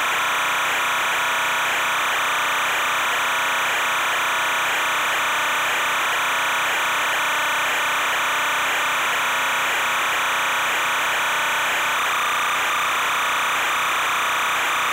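Steady, unchanging hiss-like noise with no distinct events.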